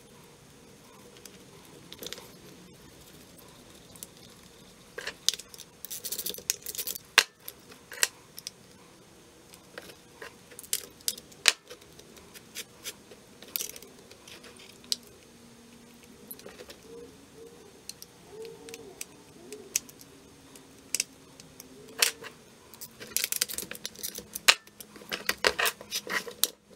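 Scattered metal clicks and clinks of a chainsaw being put back together by hand: the saw chain rattling as the bar and chain are handled and fitted, with parts and tools tapping on the bench. The clicks come in quick clusters about a quarter of the way in and again near the end.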